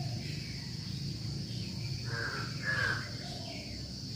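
A bird giving two short calls about two seconds in, over a steady high-pitched drone and fainter bird calls.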